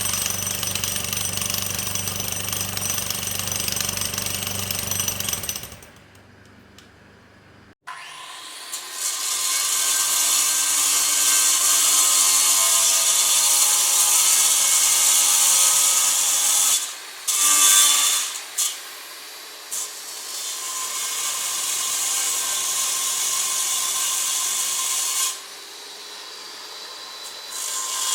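Power tools running, tagged as cutting into wood: a steady machine drone for about six seconds, a quieter pause, then from about eight seconds a loud cutting run that stops and restarts a few times.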